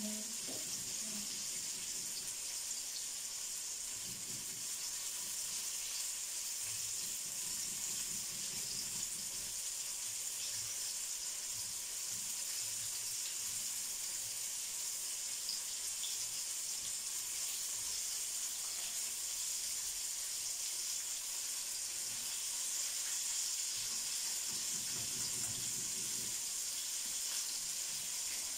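Flour-coated chicken strips deep-frying in hot oil in a frying pan: a steady, even hissing sizzle.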